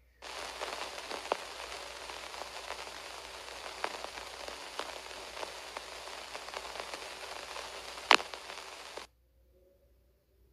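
Steady hiss with scattered crackles and pops, the surface noise of an old film soundtrack carrying no music. It starts just after the beginning, has one sharper, louder pop about eight seconds in, and cuts off abruptly about nine seconds in.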